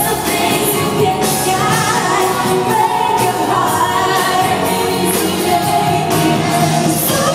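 Live pop music: a female lead singer with band backing, heard through a large hall.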